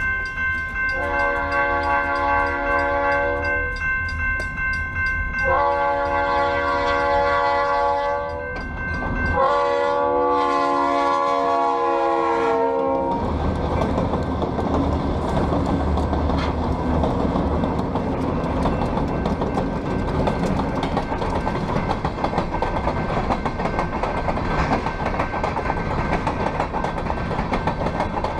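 Diesel freight locomotive's air horn blowing three long blasts for a grade crossing, the last one dropping in pitch as the engine goes by. Then the locomotives' engines rumble past close by and a string of covered hopper cars rolls past, wheels clacking over the rail joints.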